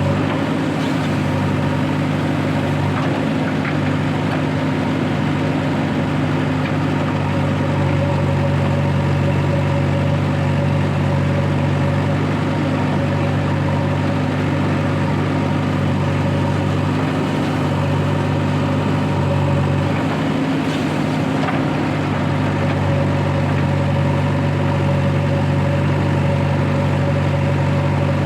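Heavy-machinery diesel engine idling steadily, an even low hum with no revving or bucket impacts.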